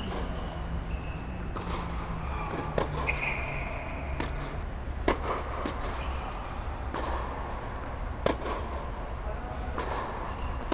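Tennis ball struck by rackets and bouncing on an indoor hard court during a rally: sharp pops about every second or so, over a steady low hum.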